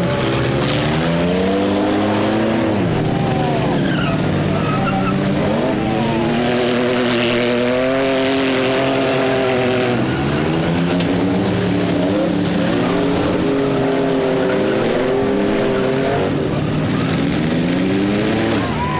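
Several demolition-derby minivan and SUV engines revving hard, their pitch climbing and dropping again and again as the vehicles back up and charge.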